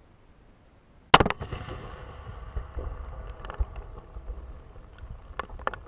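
A firework going off under a watermelon, blowing it apart: one very loud sharp bang about a second in, two quick cracks right after, then crackling and scattered smaller pops through the rest.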